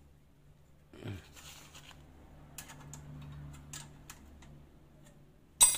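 Spoke wrench tightening spoke nipples on a motorcycle wheel rim during truing: faint scattered metal clicks and scrapes, then one sharp metallic ping near the end that rings on briefly.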